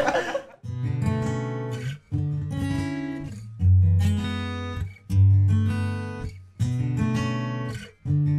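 Background music: an acoustic guitar strumming chords, a new chord about every second and a half, each ringing out and fading before the next.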